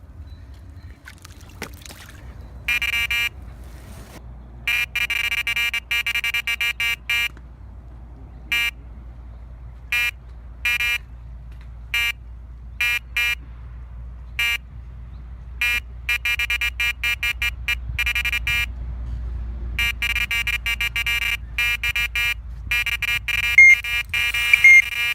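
Electronic carp bite alarm sounding as a carp takes line: a run. It beeps in bursts, some stuttering and some held, and goes almost continuous over the last few seconds.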